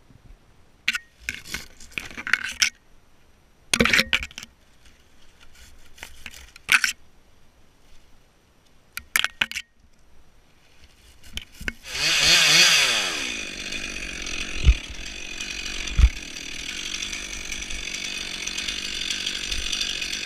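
Short bursts of rustling and scraping from dry palm fronds and fibre being handled. About twelve seconds in, a top-handle two-stroke chainsaw starts running, rising in pitch as it revs up, then runs steadily with two sharp knocks a couple of seconds later.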